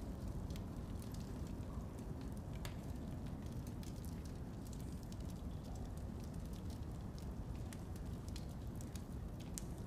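A steady low rumble of room ambience with scattered faint crackles of burning torches.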